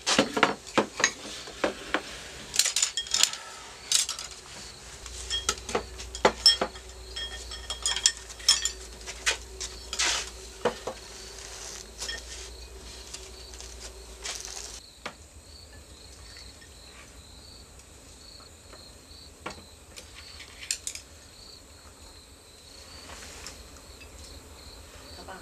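Bowls, plates and chopsticks clinking and clattering on a table as dishes are set down and a meal is eaten. About fifteen seconds in, the clatter thins to occasional taps and a steady, rapid cricket chirping carries on underneath.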